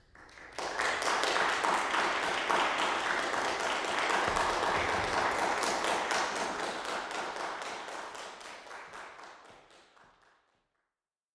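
Audience applauding: many hands clapping, starting about half a second in, then thinning out and stopping about ten seconds in.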